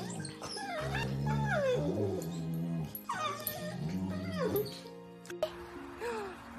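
Pit bulls play-fighting, with whining yips that bend up and down in pitch in two long runs, over background music.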